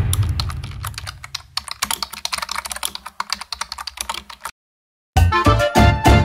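Rapid keyboard-typing sound effect, a dense run of clicks that stops about four and a half seconds in, over a low rumble that fades out by about two seconds in. After a short silence, bouncy background music starts near the end.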